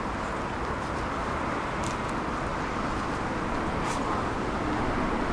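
Steady rumble and hiss of a city tram, with two brief clicks about two and four seconds in.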